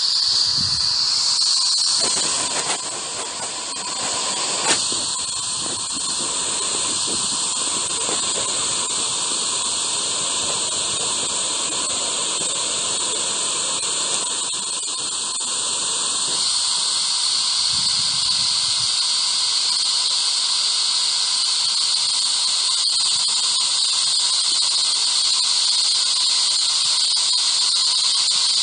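Ghost Radio spirit-box app putting out steady hissing static with a bright, high squealing band and a faint steady tone beneath it. There is one sharp click about five seconds in.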